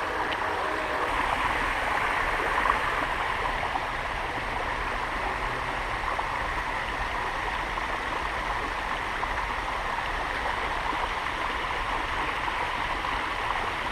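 Creek water flowing in a steady, unbroken rush.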